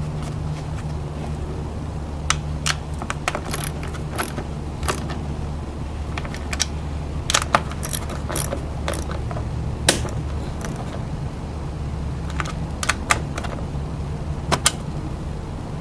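Toyota 2AZ-FE 2.4-litre four-cylinder engine of a Scion tC idling steadily, with scattered sharp metallic clicks and rattles over it, some in quick clusters.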